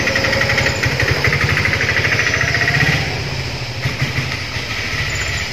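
Egg, sugar, salt and milk being mixed hard in a bowl, a fast, even rattle that eases a little about three seconds in.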